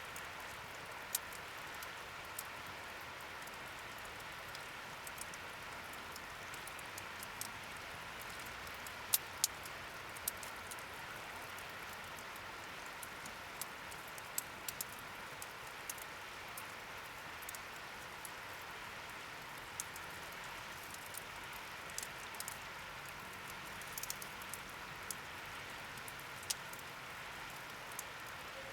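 Wood campfire burning in a fire stand: scattered sharp crackles and pops over a steady hiss.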